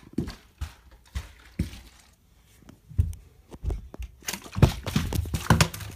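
Footsteps on carpeted stairs, dull thuds about twice a second. Near the end a partly filled plastic bottle is grabbed and handled on a carpeted step.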